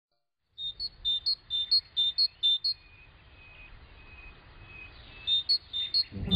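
A bird calling a repeated high two-note chirp, the second note higher, about two calls a second. The calls come in two runs with a pause between. Low music comes in right at the end.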